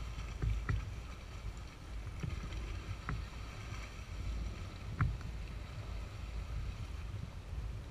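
ATV engines idling at a distance, a low steady rumble mixed with wind on the microphone, with a few faint clicks.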